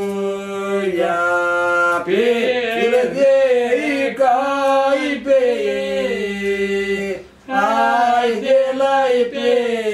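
Two elderly men singing a Greek village folk song unaccompanied, in long held notes with slow melodic turns, breaking briefly for breath about seven seconds in.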